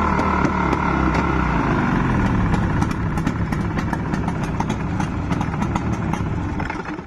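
40-horsepower outboard motor running, its revs falling over the first second or two into a rougher, clattering run. The sound drops off sharply near the end.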